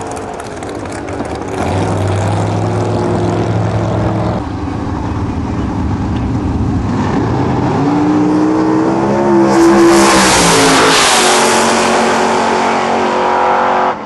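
Drag racing cars' engines at full throttle: a car pulling away down the track, then a fresh pair launching about eight seconds in, their engine note climbing as they accelerate and loudest about two seconds later.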